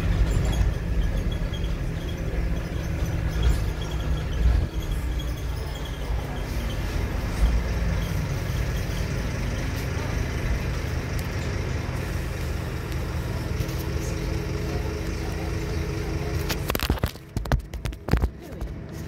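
Scania diesel engine of an ADL Enviro 300 single-deck bus, heard from inside the passenger saloon as the bus drives along, a steady low drone whose pitch shifts as the bus changes speed. Near the end the engine sound goes muffled, with knocks and rustling as the recording phone is handled or covered.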